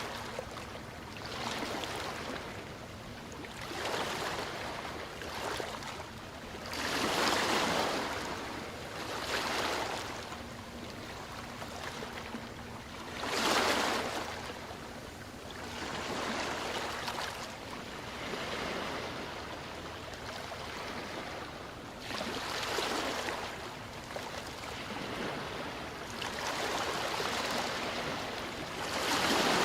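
Ocean waves breaking and washing on a shore, in repeated swells of surf every few seconds, with a steady wash of water between them.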